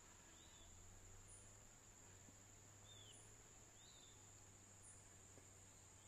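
Very faint forest ambience: a steady high-pitched insect drone, with a few soft, brief bird chirps about half a second in and around three seconds in.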